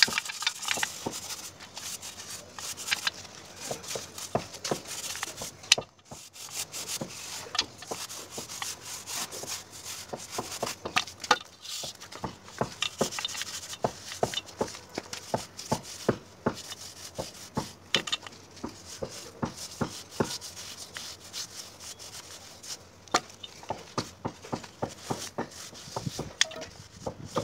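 Hand plastering tools scraping and tapping on wet cement plaster on a brick wall: many short scrapes and clicks at an irregular pace as the plaster is worked and levelled.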